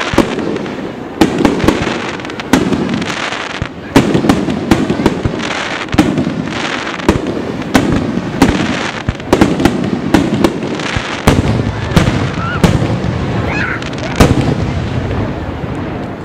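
Aerial fireworks shells bursting in quick succession, sharp bangs about twice a second over a constant crackle of burning stars.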